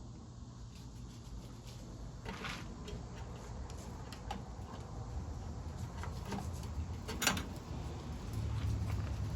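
Metal engine parts being handled and fitted by hand: scattered light clicks and knocks with a short scrape about two seconds in and a sharper click near the end, over a low steady hum that grows louder late on.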